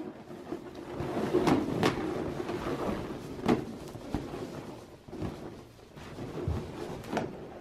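Inflated latex balloons rubbing and squeaking against each other as hands press and shift them in a packed balloon column, with a few short sharp strokes.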